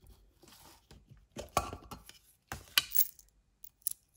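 Loose euro coins clinking together in a glass bowl as they are handled and dropped, in a few short clattering bursts.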